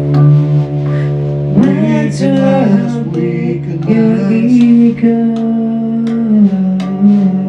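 Heavy metal band playing in rehearsal: sustained electric guitar chords over a steady low bass note, with occasional sharp drum or cymbal strikes.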